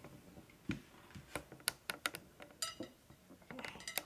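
Faint scattered clicks and light knocks of kitchen utensils being handled on the counter, with one brief ringing clink about two and a half seconds in.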